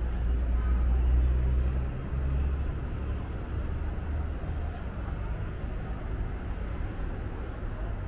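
City street traffic with a vehicle's low engine rumble, loudest in the first two seconds and fading by about four seconds in, over a steady background of traffic and people.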